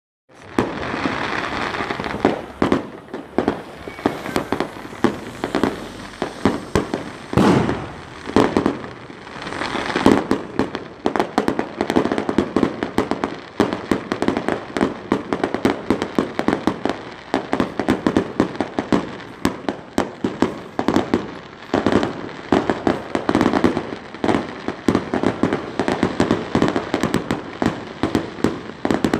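Fireworks going off in a dense, continuous string of bangs and crackling pops, several a second, with a few louder booms about seven to ten seconds in.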